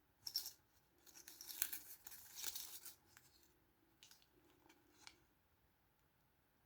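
Small plastic toy packaging being handled and torn open by hand: a sharp click, then about two seconds of crinkling and tearing, then a few light clicks.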